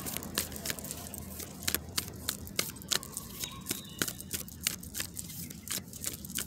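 Moonology oracle cards being shuffled by hand: a fast, irregular run of card snaps and flicks.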